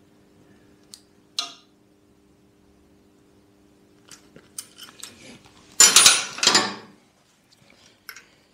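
Hand tools and a steel clutch cable being handled on a scooter engine: scattered small metallic clicks and clinks, then a louder scraping clatter about six seconds in that lasts about a second.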